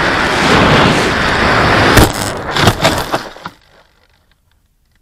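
Rushing wind noise on an FX-79 Buffalo flying wing's onboard camera as it skims low, then about two seconds in a sharp knock as it belly-lands on a dirt field, followed by a second or so of scraping knocks before the noise stops.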